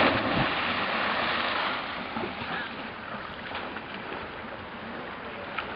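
Several people splashing into the sea together: a big splash at the start, then about two seconds of spraying, churning water that settles into a steady wash of water.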